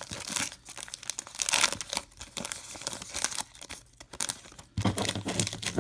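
Foil wrapper of a trading card pack being torn open and crinkled, with irregular rustling of the wrapper and cards.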